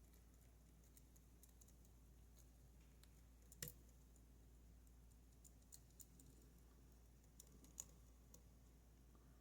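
Faint, scattered metallic clicks of a lock pick working the pin stacks of a Goal Z pin-tumbler lock under tension, one sharper click about three and a half seconds in, over a low hum.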